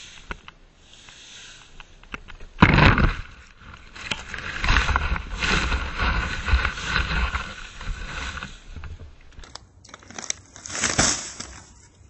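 Dry fallen leaves rustling and crunching as they are raked and scooped across pavement into a plastic container, with a loud crunch about three seconds in, a long run of scraping and rustling after it, and another burst near the end.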